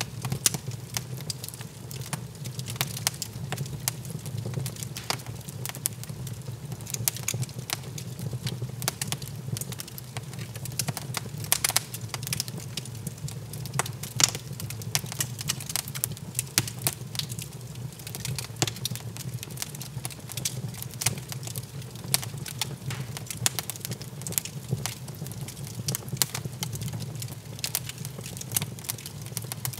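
Wood fire crackling in a fireplace, with irregular sharp pops and snaps over a steady low rumble.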